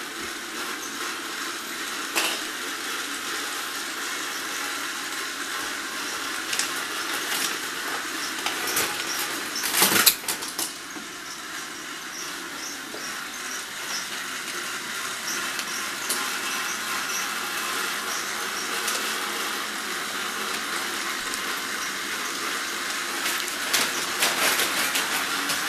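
Battery-powered toy train motor whirring steadily as it pulls a long line of coupled toy engines around a plastic track, with a rattle of wheels. A loud knock comes about ten seconds in, and a few clicks come near the end.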